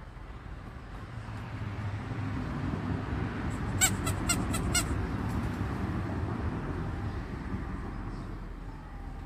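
Cockatiel giving a quick run of five short, sharp chirps about four seconds in. Under it a rushing noise swells and then fades.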